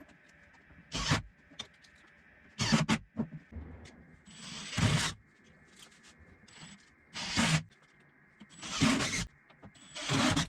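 Six short rubbing scrapes, one to two seconds apart, over a faint steady hum.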